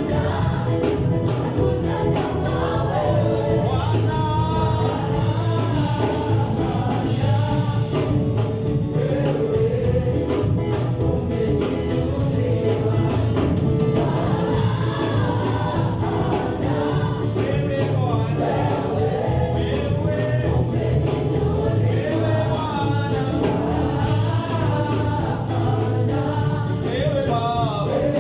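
Gospel worship song with group singing over a full band, steady and continuous.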